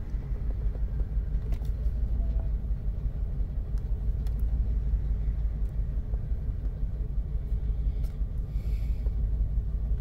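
The Chevrolet Express's 4.3-litre V6 runs with a steady low rumble, heard from inside the cab. The engine has a small cylinder-3 misfire that the scan tool logs. A few faint clicks sound over it.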